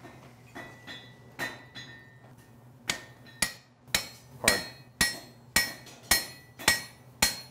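Hand hammer striking a steel drift set in a punched hole in red-hot steel on an anvil, driving it through to open the hole wider. A few light taps first, then from about three seconds in steady ringing blows, about two a second.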